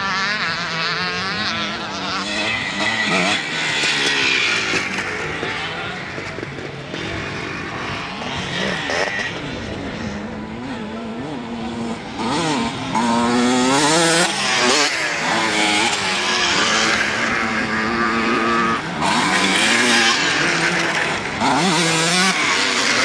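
Motocross bikes racing over a jump one after another, their engines revving hard and easing off, with the pitch sweeping up and down with the throttle. The loudest passes come in the middle and near the end.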